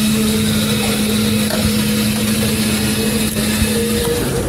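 Electric ice-shaving machine's motor running with a steady hum, switched off about four seconds in.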